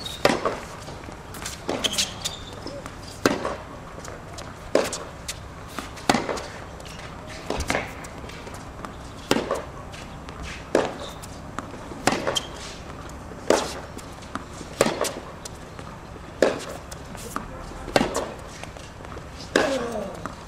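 Tennis ball struck back and forth in a long baseline rally: sharp racket hits and ball bounces, one every second and a half or so, about fourteen in all.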